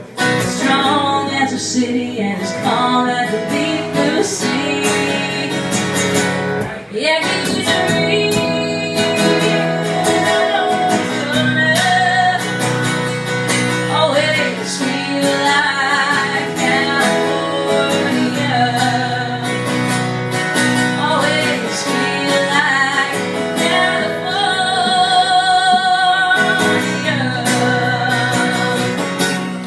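A woman singing while strumming an acoustic guitar, live through a microphone, with a brief dip about seven seconds in.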